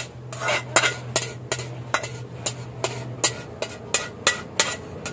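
Spatula scraping and knocking against a metal frying pan while fried rice is scraped out onto a plate, in short strokes about two to three a second.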